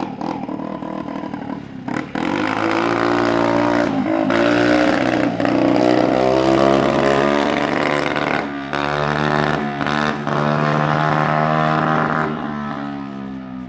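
Small pit bike's engine revving hard as it rides past, getting loud about two seconds in, easing off briefly around the middle, then dropping in pitch and fading as it rides away.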